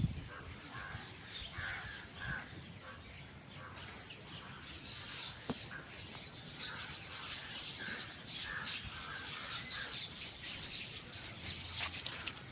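Birds chirping in short repeated calls over outdoor ambience, with scattered light clicks.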